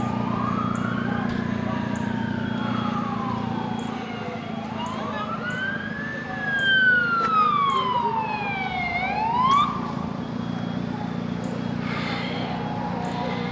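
Emergency vehicle sirens wailing in slow rising and falling sweeps, two of them overlapping. The loudest sweep, in the middle, falls and then shoots sharply back up before cutting off about two-thirds of the way through. A steady low engine rumble runs underneath.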